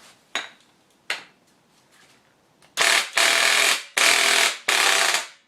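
Impact driver hammering in four short bursts, starting about halfway in, to undo the clutch nut; two light clicks come first.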